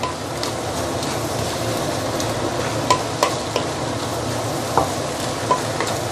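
Flat rice noodles, bean sprouts and prawns sizzling in a stainless steel wok while a wooden spatula stirs and turns them, with a few light knocks of the spatula against the pan.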